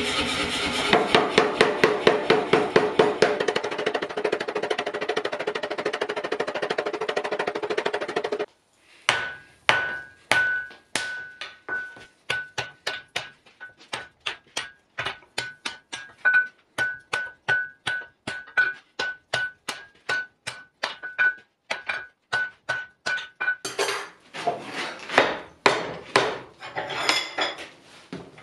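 Air-powered forging hammer pounding a glowing wrought iron bar in rapid blows, several a second, cutting off suddenly about eight seconds in. Then a hand hammer strikes the hot iron on an anvil about twice a second, each blow with a clear anvil ring. Near the end the blows land on the axe eye clamped in a vise and ring higher.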